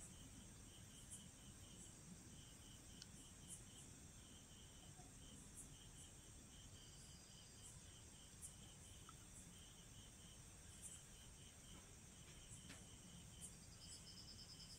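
Near silence: faint outdoor ambience with steady, high-pitched chirping repeated in quick rows.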